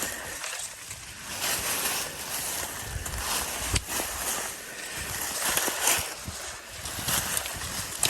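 Irregular crunching and rustling of dry leaves and brush underfoot as hikers slide and step down a steep slope.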